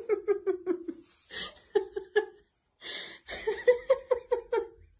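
A person laughing in three runs of quick, pitched 'ha' sounds, drawing breath between the runs.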